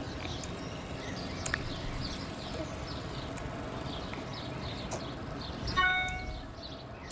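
Home room ambience with a steady background hiss and birds chirping repeatedly outside, and one brief high-pitched tone about six seconds in.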